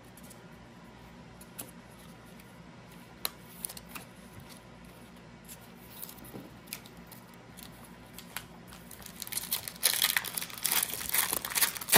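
Foil wrapper of a Panini Donruss Euroleague trading-card pack being torn open and crinkled by hand, loud and dense from about nine seconds in. Before that, a few faint clicks as cards are handled.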